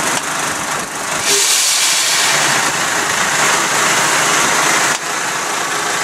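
Iveco tractor unit's diesel engine running, with a hiss of compressed air from about one second in until it cuts off about five seconds in, as the trailer's air-brake lines are disconnected.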